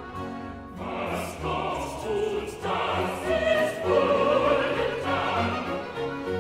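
Choir and orchestra performing classical choral music. The full choir comes in about a second in, over the ensemble's sustained instrumental playing.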